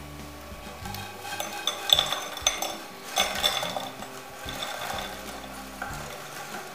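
Crisp fried bread croutons tumbling off a frying pan onto a ridged serving dish: a run of light clicks and clatter, busiest from about two to three and a half seconds in.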